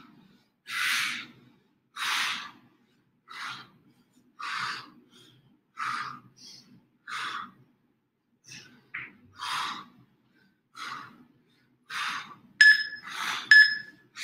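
A person breathing hard through an exercise set, a forceful breath out roughly every second and a bit in a steady rhythm. Near the end an interval timer beeps twice, marking the end of the set.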